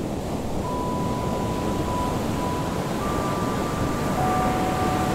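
Steady rumble of breaking surf. About a second in, long held electronic tones come in, changing pitch twice: the opening notes of a music track.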